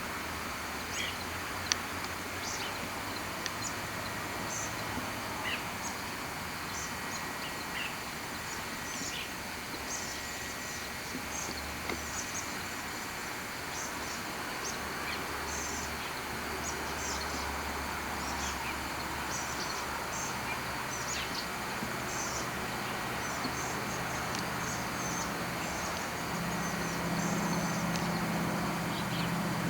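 Outdoor background noise with many short high-pitched chirps scattered throughout, over a steady low hum that rises in pitch and grows louder near the end.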